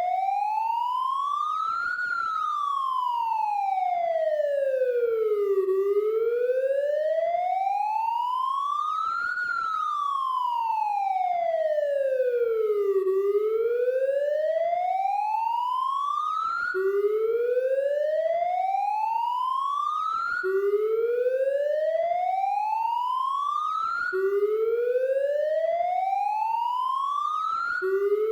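Police siren wailing, its pitch gliding slowly up and down, each rise or fall taking three to four seconds. About two-thirds of the way through it changes to slow rising sweeps that drop straight back to the low pitch at the top.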